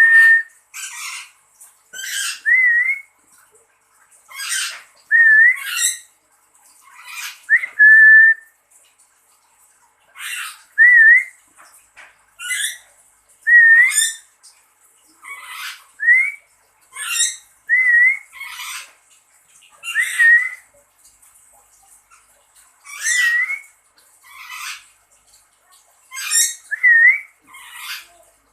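A nuri (lory parrot) calling over and over, giving short harsh squawks about every second or two. Many of the squawks are paired with a short rising whistle.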